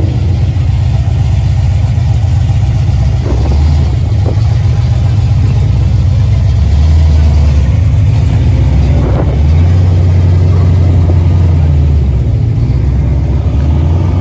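Classic first-generation Ford Mustang GT convertible's V8 running at low speed as the car creeps past close by, a loud deep exhaust rumble that swells a couple of times in the second half.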